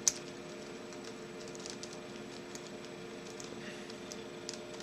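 Faint, scattered small metallic clicks of a lock pick working inside a 6-pin Euro cylinder, with one sharper click right at the start, over a steady low hum.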